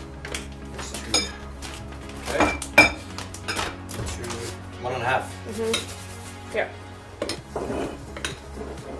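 A metal fork stirring flour and egg into pancake batter in a glass mixing bowl, with irregular scraping and clinking against the glass. The loudest clinks ring briefly about three seconds in.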